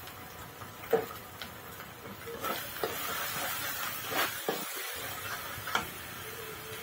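Masala frying in oil in a karahi, sizzling, while a steel spatula scrapes and knocks against the pan as it is stirred. The sizzle grows louder a couple of seconds in, with a handful of separate scrapes about a second apart.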